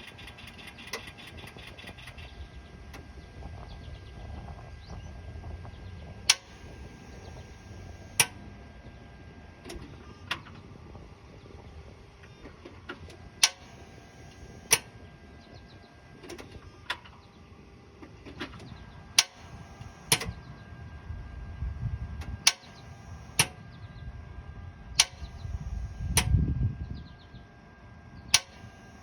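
A 2007 Mitsubishi Outlander that won't start, heard from underneath the car as the key is turned: about a dozen sharp clicks at uneven gaps of one to three seconds, and a brief low rumble near the end. The engine never catches.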